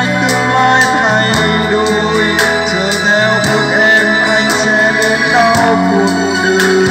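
A song with singing played loudly through a JBZ 106 portable trolley PA speaker, with a steady bass line and a regular beat.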